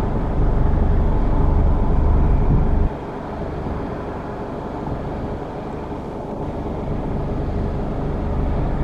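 Claas Lexion 6800 combine harvester running steadily, a low engine rumble under a steady machine hum. The rumble drops off sharply about three seconds in and slowly builds back up near the end.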